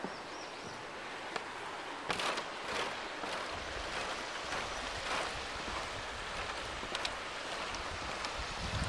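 Shallow river running over stones: a steady rushing hiss, with a few soft knocks now and then.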